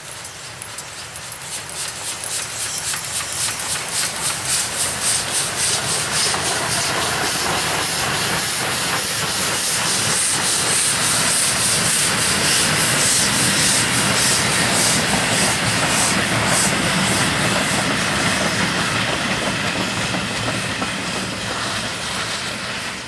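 Steam locomotive Ol12-7 working a passenger train past, its exhaust chuffing in an even rhythm. The sound builds as the engine approaches, is loudest through the middle as it passes close by with its carriages rolling behind, and fades near the end as the train draws away.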